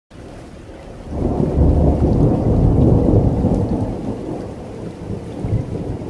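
Steady rain with a long rumble of thunder that swells about a second in and slowly dies away.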